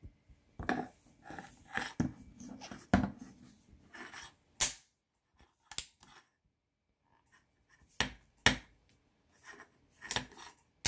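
Pietta 1851 Navy .44 cap-and-ball revolver being handled and its action worked by hand: a few knocks and rustles as it is picked up, then the hammer cocked and let down again and again, a series of sharp metallic clicks about a second apart.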